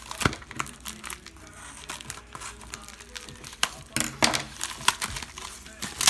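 Packaging crinkling and rustling as it is handled and unwrapped, in short irregular bursts with a few sharp clicks.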